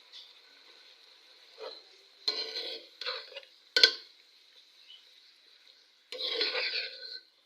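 A spoon stirring and scraping in a cooking pot in several short bursts, with one sharp metal clink near the middle.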